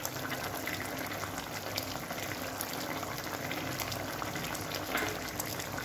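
Thick mustard-gravy fish curry boiling in a kadai: a steady bubbling with many small pops, the gravy nearly done.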